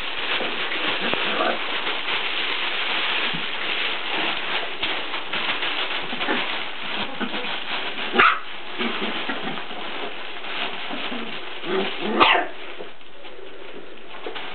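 Five-week-old Border collie puppies playing in a fabric play tunnel: a steady rustling scuffle, broken by two short puppy barks, one about eight seconds in and a louder one about twelve seconds in.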